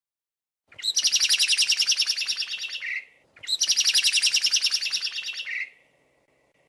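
Songbird singing two phrases of a rapid, even trill of high notes, each about two seconds long and ending on a slightly lower note; the second begins just after the first stops.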